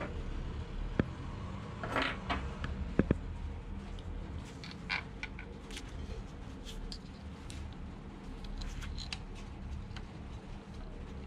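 Scattered light clicks and taps, a few a little sharper than the rest, over a steady low hum.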